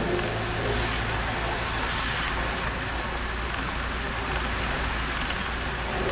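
Steady engine and road noise of a moving bus, an even rumble and hiss with a faint low hum in the first couple of seconds.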